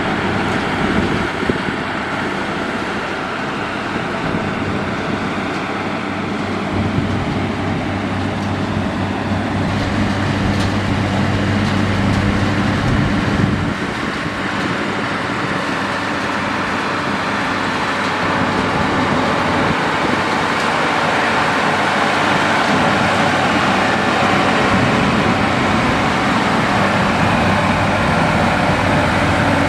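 Diesel engine of heavy road-construction machinery running steadily under load, with a constant low engine note over a dense mechanical noise.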